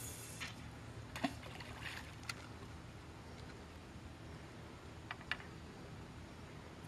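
A few light clicks from a spinning reel and feeder rod being handled, in pairs about a second in and again around five seconds in, over a low steady background rumble.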